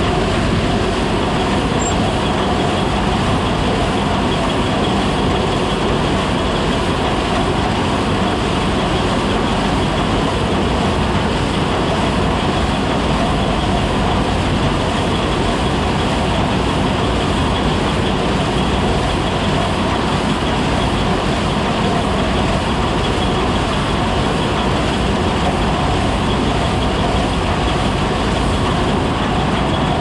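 John Deere combine running with its header and cross auger turning: a loud, steady machine noise close by that does not change.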